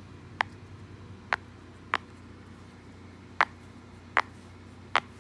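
Silicone push-pop fidget toy being pressed bubble by bubble: six sharp pops at uneven intervals, roughly one a second.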